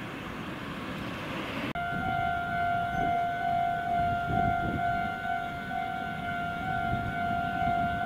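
A Japanese railway level crossing's electronic warning bell ringing its repeated kan-kan tone, the signal that a train is approaching. It starts abruptly about two seconds in, after a brief rushing noise.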